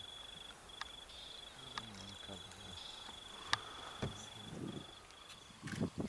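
An insect trilling steadily at a high pitch, the trill breaking off briefly now and then. Three sharp clicks, the loudest about halfway through, and a few low rumbles near the end.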